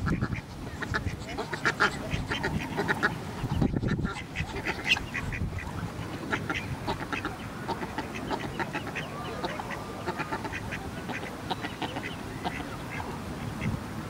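A brood of Muscovy ducklings peeping, many short high calls coming in quick, overlapping runs, over a low rumble.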